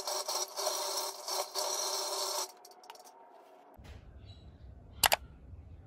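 Tap water running and splashing into a stainless-steel sink as hands splash the face, cutting off sharply about two and a half seconds in. A low hum follows, with one sharp click about five seconds in.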